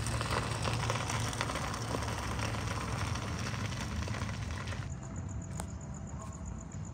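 Food sizzling and crackling in a pot on a portable butane camp stove, with many small pops over a steady low rumble. About five seconds in, the sizzle cuts off and only a quieter steady hum remains.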